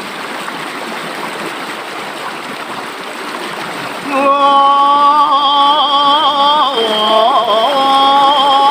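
A stream flowing, then about four seconds in a voice starts singing long held notes with a wavering vibrato over the water, dipping in pitch briefly before settling back onto a held note: vocal practice by a river.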